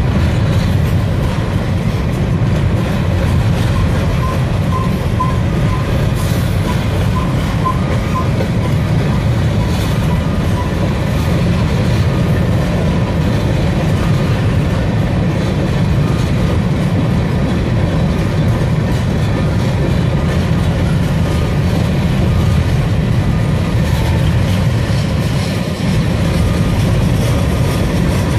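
Freight train of covered hopper cars rolling steadily past: a continuous rumble of steel wheels on rail with irregular clatter.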